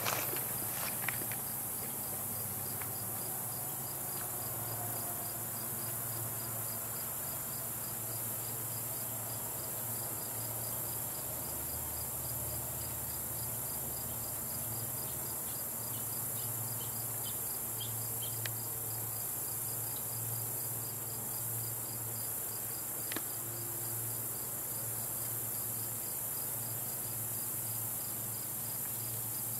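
Crickets chirping in the grass: a regular chirp repeating a few times a second over a steady high insect buzz.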